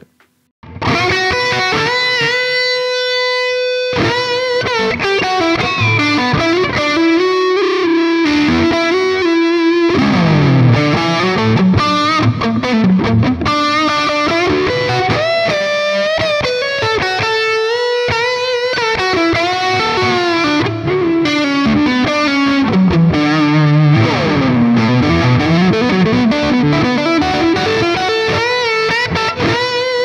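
Charvel San Dimas electric guitar played through heavy distortion: one long held note at first, then a fast, busy lead line with deep swooping dips in pitch that come back up.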